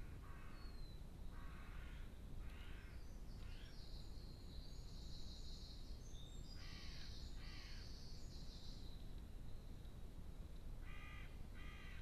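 Harsh, rasping bird calls of about half a second each, in runs of two to five: several at the start, two in the middle and two near the end. A higher bird call sounds through the middle, over a steady low rumble.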